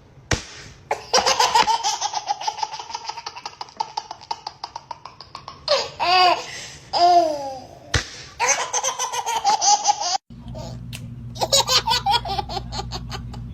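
Babies laughing: long runs of rapid, high-pitched giggles with a couple of squeals in between. After a sudden change about ten seconds in, a low steady hum runs under more laughing.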